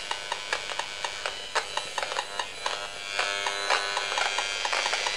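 EMFields Acousticom 2 RF detector's loudspeaker sounding out the radio signals it picks up: irregular clicks, joined about three seconds in by a steady buzzing tone. The owner takes the signal for a directed-energy beam aimed at her.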